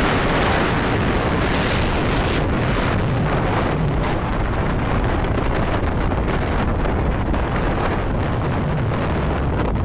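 Wind buffeting the microphone of a vehicle moving at speed, a steady rushing roar over the low rumble of engine and tyres on the road.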